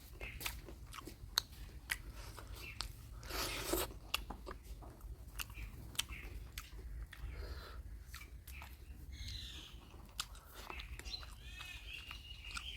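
Close-up chewing and biting of mutton curry, with wet mouth clicks and smacks, and a louder rush of noise about three and a half seconds in.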